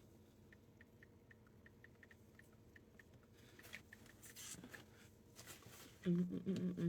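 Faint run of small, regular ticks, about four or five a second, then a few brief rustles. Near the end a person starts humming a wavering tune.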